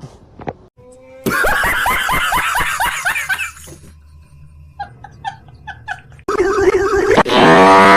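Meme sound-effect clips played one after another. About a second in comes a loud burst of laughter, then a few short pitched notes around five seconds in, then a loud sustained sound near the end.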